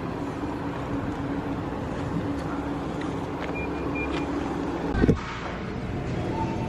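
Parking-lot noise with a vehicle running, a steady low hum under it, and two short high beeps about three and a half seconds in. A brief thump about five seconds in, after which the background changes to indoor store ambience.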